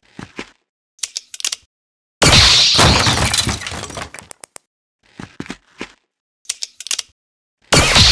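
Added fight sound effects for a Lego minifigure stop-motion brawl: a string of short sharp hits, with a loud crash about two seconds in that dies away over a second and a half, and another crash near the end.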